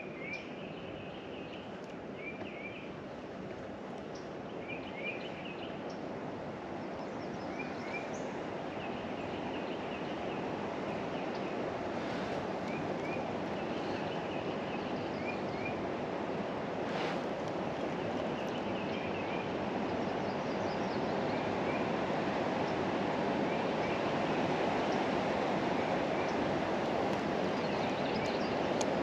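Steady rushing of wind and choppy lake water, slowly growing louder, with a songbird calling short high chirps in little runs throughout.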